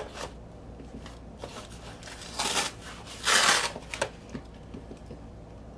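Cardboard shipping mailer being opened by hand: packing tape pulled and torn off the cardboard in two short tearing sounds about a second apart, with light rustling and handling clicks.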